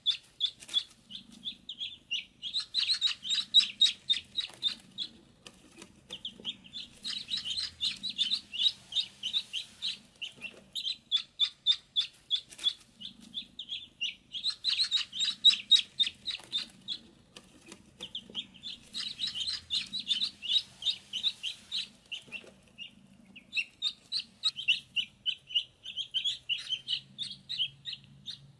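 A group of ducklings peeping: many rapid, high, overlapping peeps that swell into busier spells every few seconds.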